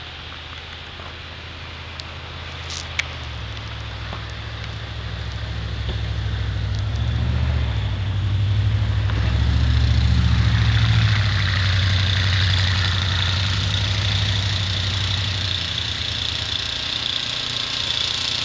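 A motor vehicle's engine running with a low drone, growing louder to a peak about halfway through and then holding steady, with a rising hiss in the later part.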